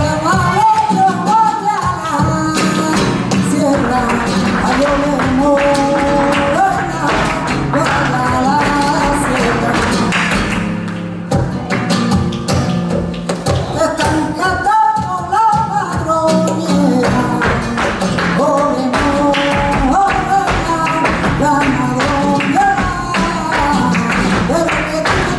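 Live flamenco alegrías: a sung melody over flamenco guitar, with the sharp, rapid taps of the dancers' footwork on the stage.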